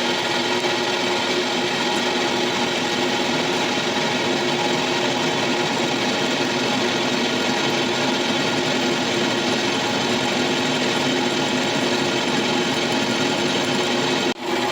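Metal lathe running at a steady speed while machining a cast belt pulley, a constant hum under a dense scraping noise of the cut. The sound drops out for a moment near the end.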